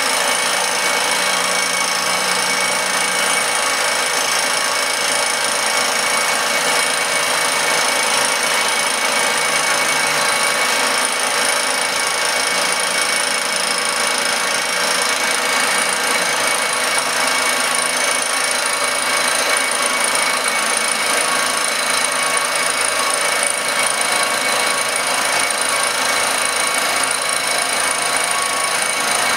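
Circa 1948 Gorton 8-1/2D milling machine taking a cut across an aluminum casting: the spindle and cutter run with a steady, even cutting noise, carrying a few steady high whines.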